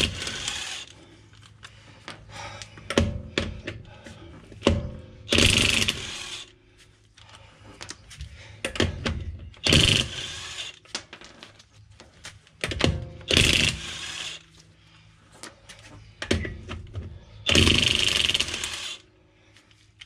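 DeWalt cordless impact wrench with a 17 mm socket hammering wheel bolts loose, on its second power setting rather than full. It goes in five short bursts about four seconds apart, with light clicks between them.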